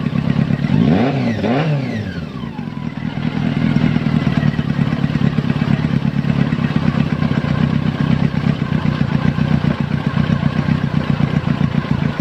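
Honda CB400 motorcycle engine running: revved up and back down once about a second in, then idling steadily.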